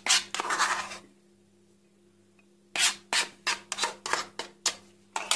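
A hand-held yellow plastic kitchen tool rasping in short scraping strokes over the walnut-topped dessert. There is a burst in the first second, then a quiet gap, then a run of about three strokes a second from about three seconds in. A faint steady hum runs underneath.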